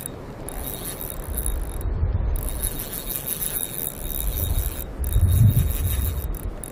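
Spinning reel being cranked to retrieve a lure, with wind rumbling on the microphone in gusts, strongest about five seconds in.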